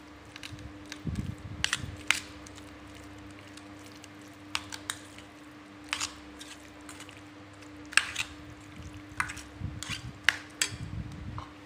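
Metal spoon stirring shell-on apple snails in a thick curry marinade in a stainless steel pot: irregular clinks of spoon and shells against the steel with soft wet squelching between them. A steady low hum runs underneath.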